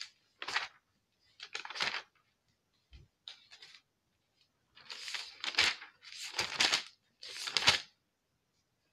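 Thin Bible pages being flipped: a run of quick rustling swishes, the last three longer and louder, with a soft bump about three seconds in, while a passage in Deuteronomy is looked up.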